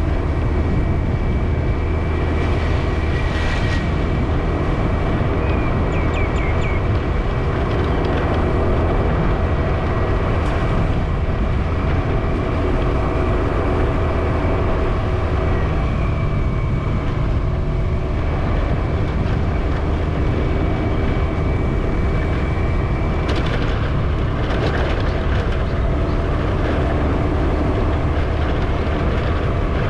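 Steady road and engine noise of a moving vehicle heard from on board, a continuous low rumble with a faint steady whine. A few brief clicks or rattles come through now and then.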